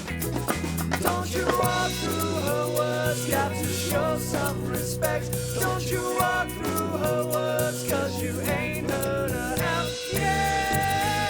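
Band playing a reggae song: a bass line and drums under a lead melody line that bends and slides in pitch.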